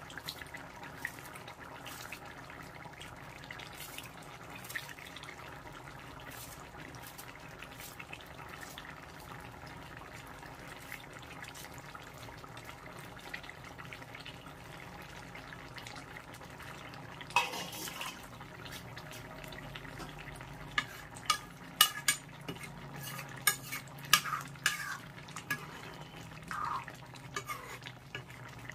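Fish and cauliflower curry simmering steadily in a metal kadai. In the second half, a metal ladle clinks and knocks against the pan several times as the curry is stirred.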